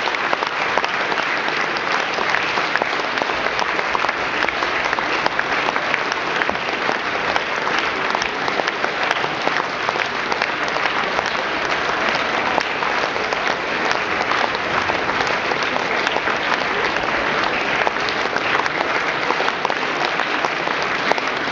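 Theatre audience applauding, a dense, steady wash of many hands clapping at once.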